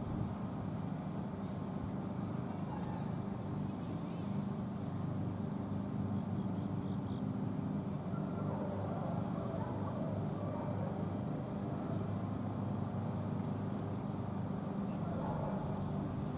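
Steady outdoor ambience at a football game: a low, even murmur of crowd and field noise with no distinct events.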